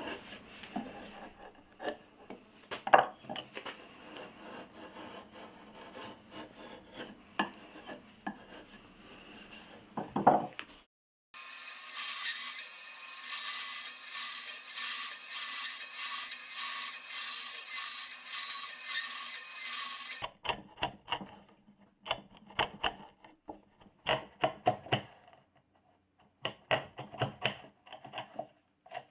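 A hand chisel pares and scrapes soft wood in short strokes, lifting curled shavings. About eleven seconds in, a scroll saw takes over, cutting through a wooden block with a motor hum and a quick, even rhythm. It stops after about nine seconds, and then a router plane scrapes the bottom of a slot in short bursts of strokes.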